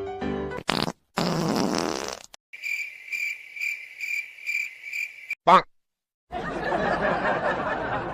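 Wet fart sound effect: a short burst, then a longer noisy one about a second in. It is followed by a cricket-chirp effect, a steady high pulsing for about three seconds at roughly three chirps a second. Then comes a brief loud sound that slides in pitch and, after a moment of silence, background noise with voices.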